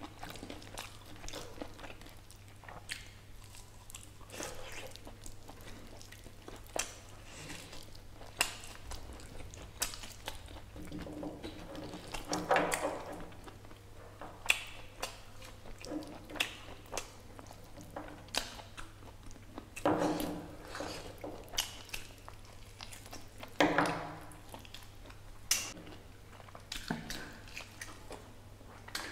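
Close-up eating sounds from mutton curry and rice eaten by hand: chewing, biting and wet mouth clicks and smacks, with three louder mouth noises spread through. A faint steady low hum runs underneath.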